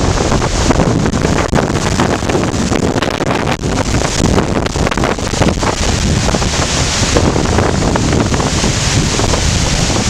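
Hurricane Sandy's high winds gusting and buffeting the microphone with a loud, rumbling rush, over the hiss of heavy rain.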